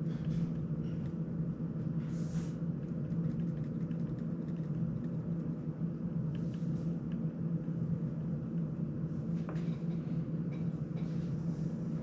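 Steady low hum of an electric desk circulator fan running, with a few faint ticks and a brief rustle about two seconds in.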